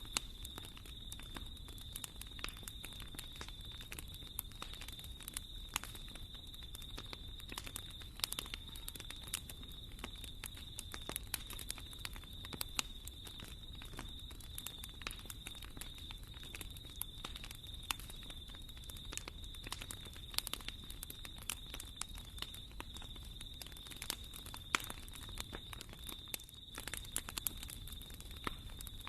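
Wood fire burning in a fireplace: irregular sharp crackles and pops over a low rumble of flame, with a faint steady high-pitched tone running beneath.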